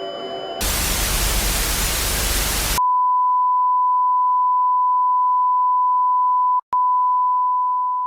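A simulated TV broadcast going off the air: a burst of loud static hiss for about two seconds that cuts off sharply, followed by a steady 1 kHz test tone, broken by a split-second dropout and beginning to fade near the end.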